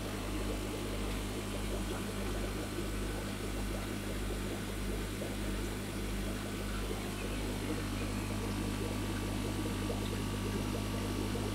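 Steady electrical mains hum from aquarium equipment such as pumps, filters and lights, a low drone made of several even tones, with a faint fluttering texture over it.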